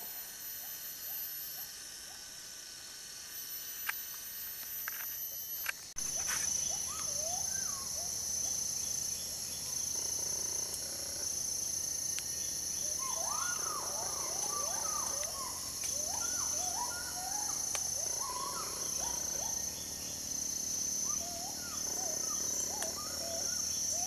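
Forest ambience: insects trill steadily at a high pitch, pulsing about once every second or two, with many short chirping bird calls coming in clusters. The sound changes suddenly and grows louder and fuller about six seconds in.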